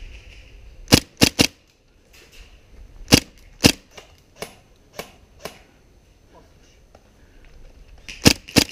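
Airsoft guns firing: a quick run of three sharp shots about a second in, then single shots every half second to a second, and another fast run of shots near the end.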